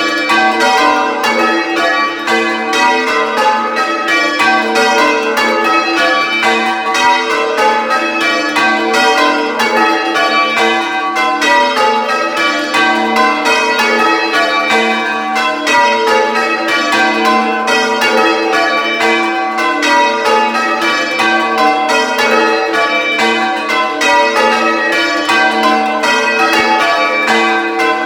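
A ring of six church bells, tenor in G, ringing call-changes, heard close up in the belfry. Strokes follow one another in a steady, unbroken stream, each bell still ringing on under the next.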